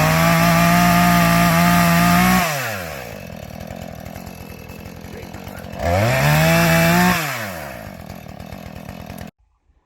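Chainsaw revved up to full throttle and held for a couple of seconds, dropped back to idle, revved again briefly, then idling until it cuts off suddenly near the end.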